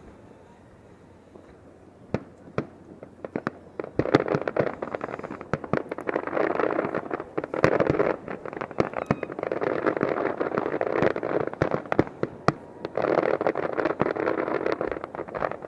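Aerial fireworks bursting: a few sharp bangs about two seconds in, then three long spells of dense crackling with loud bangs through them. The crackling stops just before the end.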